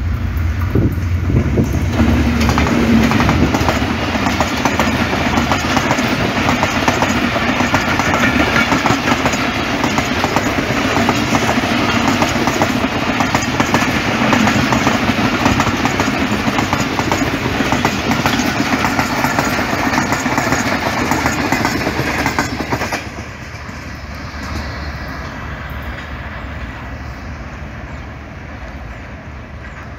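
Diesel-hauled passenger train passing close by: the locomotive engine, then the coaches rolling over the rails with a steady rumble and clatter. About three-quarters of the way through, the sound drops abruptly to a quieter, more distant train running.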